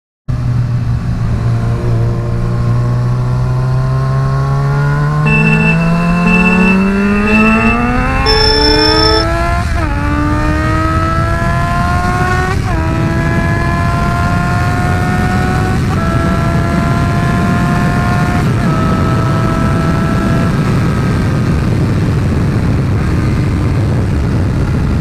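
Yamaha FZ6R motorcycle's inline-four engine accelerating hard from a stop: a long rising pull in first gear, then four upshifts, the pitch dropping at each and climbing again. It then gives way to steady wind rush at high speed. A steady high tone runs alongside for a few seconds midway through the first pull.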